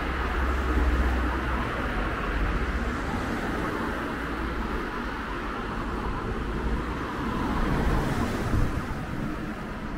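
Road traffic going by on a town street: a steady wash of tyre and engine noise with a low rumble, one vehicle swelling and fading about eight seconds in.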